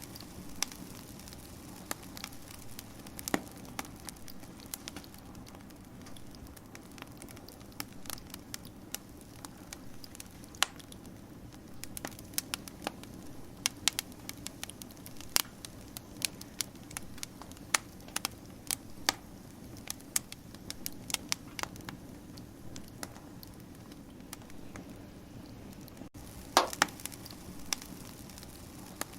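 Wood fire crackling: irregular sharp pops and snaps over a steady low hiss of burning, with a quick run of louder pops near the end.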